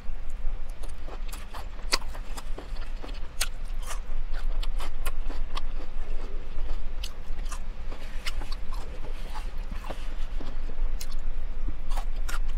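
A person chewing and biting into lettuce wraps close to the microphone, with short crisp crunches and mouth noises scattered throughout. A steady low hum runs underneath.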